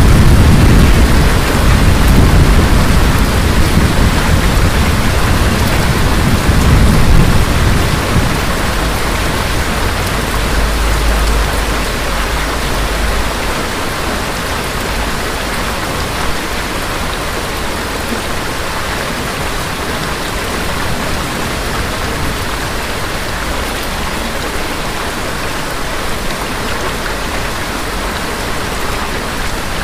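Thunder rumbling over steady rain, the rumble dying away in the first third; after that only steady rain falling.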